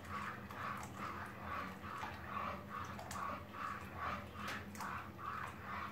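A spoon stirring hot milk briskly in a pot, a rhythmic swishing and scraping at about two and a half strokes a second, over a steady low hum. The stirring keeps the egg-yolk and starch mixture, poured into the hot milk, from cooking into lumps.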